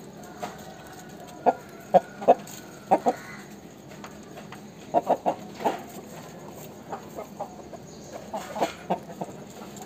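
Aseel rooster clucking: short sharp clucks in quick clusters of two to four, loudest between about one and six seconds in, then softer clucks near the end.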